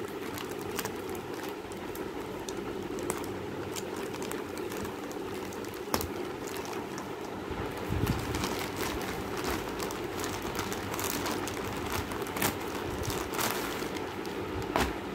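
Clear plastic packaging crinkling and crackling as packed curtains are handled and slid out of their bags, in irregular sharp crackles over a steady background hum.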